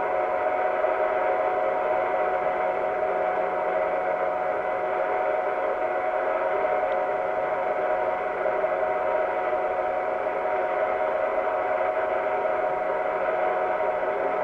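Film projector running: a steady mechanical whir with a constant hum that doesn't change.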